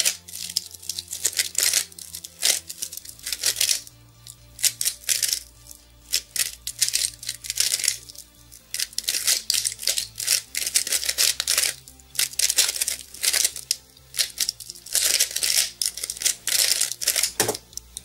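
Rapid clicking and clacking of a Mirror Blocks puzzle cube being turned fast by hand in a speed solve. It comes in quick flurries with brief pauses and stops shortly before the end as the puzzle is solved. Quiet background music with a low bass line plays underneath.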